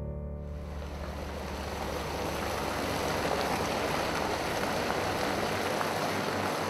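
Hot lambic wort gushing in a thick stream into a shallow open coolship, a steady splashing pour of liquid.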